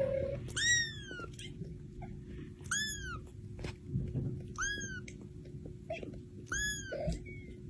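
A cat meowing: four short, high-pitched calls about two seconds apart, each rising and then falling in pitch.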